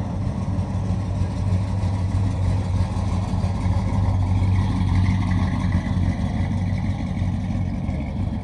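An engine idling steadily with a low, even hum.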